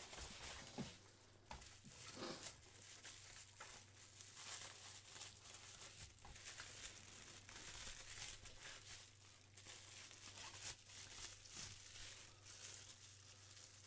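Faint crinkling and rustling of bubble wrap being handled and pulled off resin model parts, in small irregular crackles.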